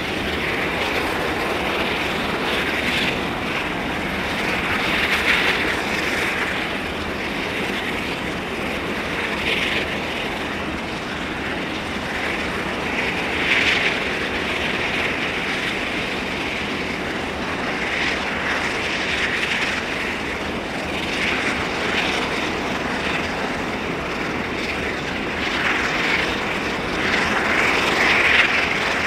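Airbus A220-300's Pratt & Whitney PW1500G geared turbofan engines running at taxi power: a steady jet rush that swells and fades every few seconds, growing a little louder near the end.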